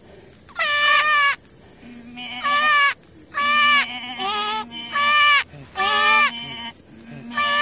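A lamb bleating over and over, about one call a second, each call dropping in pitch at its end, with a second, lower bleat overlapping at times. A thin steady high tone runs underneath.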